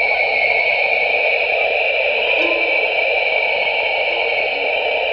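Data sonification of the Webb telescope's near-infrared image of the Southern Ring Nebula, with light frequencies mapped to sound: a steady, airy wash of noise in two pitch bands, one middling and one high, with a few faint short low tones dotted through it.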